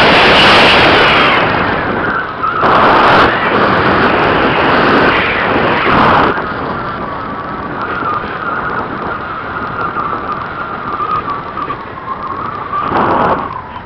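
Air rushing past the onboard camera of a gliding discus-launch glider, with a steady high whistle from the airflow. Louder gusts of rushing come near the start, around three seconds, around six seconds and again shortly before the end.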